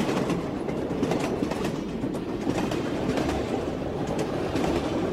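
Running noise of a moving sleeper train heard inside the carriage: a steady rumble with light clicks of the wheels over the rails scattered through it.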